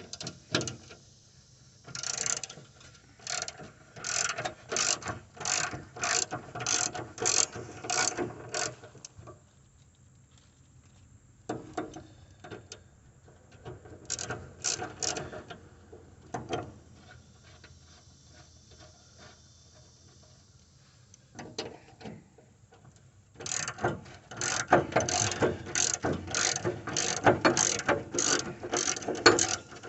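Socket ratchet clicking in quick runs as 9/16 mower-deck spindle bolts are backed out, three bursts of rapid clicks with short pauses between.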